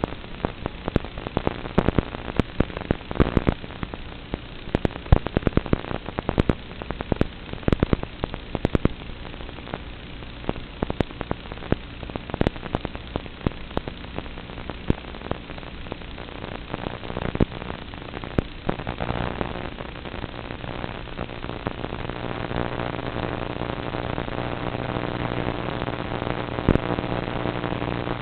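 Static hiss and crackle on the audio channel of an analog FPV goggle DVR recording. About two-thirds of the way through, the clicks thin out and a steady hum with several even tones grows slowly louder.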